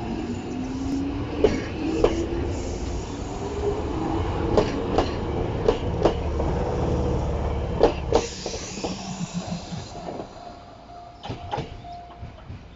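Chichibu Railway 7800 series electric train (rebuilt from a Tokyu 8090 series) pulling away: a motor whine rises steadily in pitch as it accelerates over a low rumble, with the wheels clicking over rail joints in pairs. After about eight seconds the rumble drops away as the cars pass, leaving a steady tone and a few fainter clicks.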